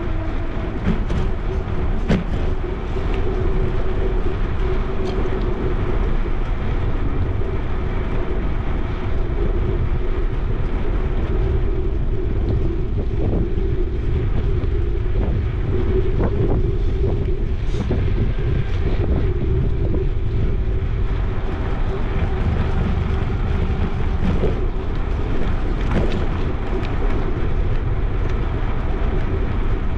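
Wind buffeting the microphone and the rumble of a bicycle's tyres rolling along a paved bike path, with a steady hum underneath and occasional light clicks.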